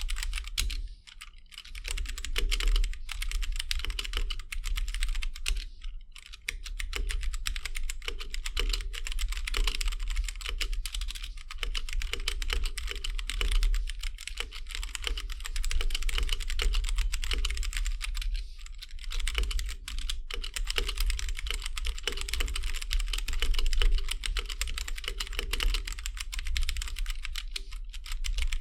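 Fast, continuous typing on a Gamakay K87 hot-swappable mechanical keyboard with Gateron Brown tactile switches and stock keycaps, a dense stream of key clacks with short pauses about a second in and again around six seconds.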